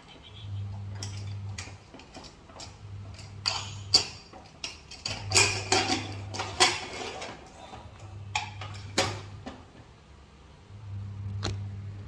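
Rustling and clicking handling noise close to the phone's microphone as hair is brushed and tossed and the phone is moved, densest in the middle. Under it is a low hum that comes and goes every second or two.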